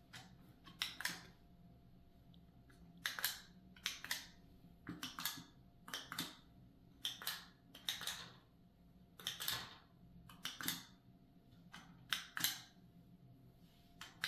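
Plastic push-button clicks from Lutron motion sensor wall switches being pressed by hand, a dozen or so sharp clicks, often in quick pairs, roughly once a second, as the switches turn the light on and off.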